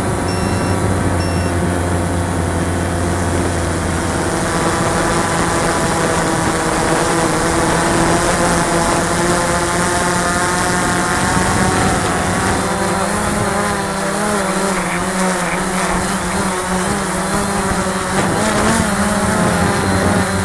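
Cheerson CX-20 quadcopter's motors and propellers buzzing, heard from the camera on board. Their pitch wavers up and down in the second half as the drone manoeuvres and drops low.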